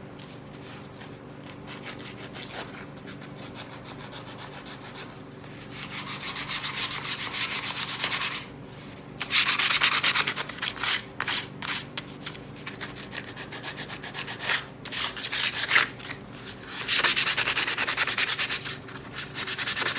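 Sandpaper rubbed by hand over a stained red oak nightstand with 120-grit paper, in quick back-and-forth strokes. The strokes are light for the first few seconds, then come in louder spells broken by short pauses.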